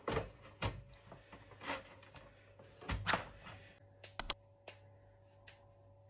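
Faint handling noises: soft rustles and light knocks, then two sharp clicks in quick succession about four seconds in, over a faint steady hum.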